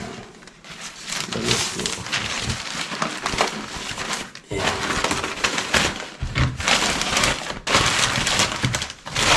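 Plastic bags and packaging rustling and crinkling as they are handled and rummaged through, with sharper cracks and snaps mixed in. The handling pauses briefly a few times.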